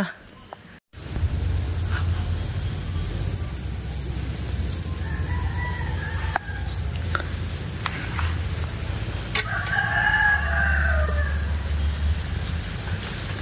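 A rooster crowing, most clearly in one long call about ten seconds in, with a fainter crow earlier. Behind it are a steady low rumble and a high rapid chirping.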